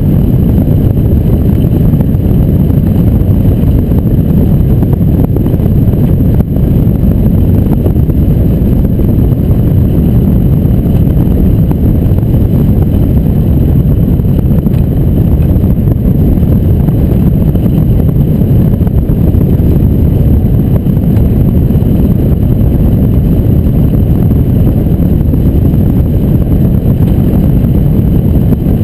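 Steady, loud wind rushing over a hang glider's keel-mounted camera microphone in free flight, a deep rumbling buffet with no pauses.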